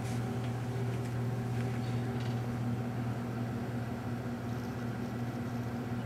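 Steady low hum with a few faint ticks in the first couple of seconds.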